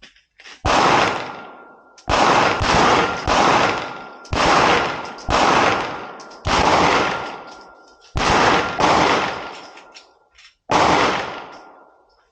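Handgun fired single shots at a slow, uneven pace, about a second apart, about a dozen in all. Each shot is a sharp crack followed by a long fading echo.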